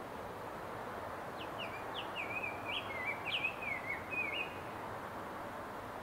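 Male rose-breasted grosbeak singing one warbled phrase of quick rising and falling notes, lasting about three seconds and starting about a second and a half in, over a steady background hiss.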